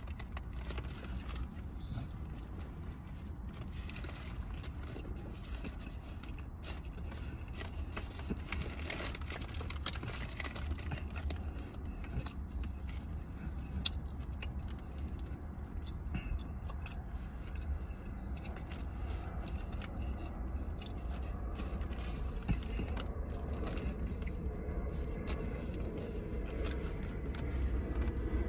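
A person chewing and handling a crinkly paper fast-food bag while eating fries and a burger, with many small scrapes and crunches over a steady low rumble.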